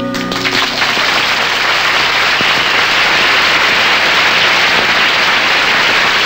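The band's last chord dies away in the first half second, then a studio audience applauds, a steady dense clapping.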